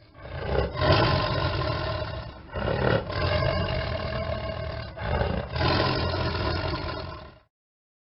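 A predator animal's roar played as a sound effect: three long roars, each about two seconds, run back to back. The sound cuts off abruptly after about seven and a half seconds.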